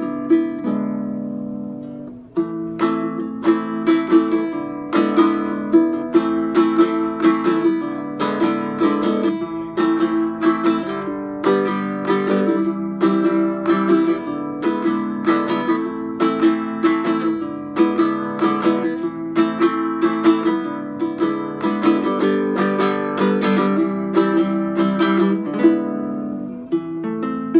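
Pinol solid-wood baritone ukulele played solo in a fast improvised fingerpicked piece. A chord rings and fades for about two seconds, then quick, evenly paced plucked notes and chords follow with a warm tone.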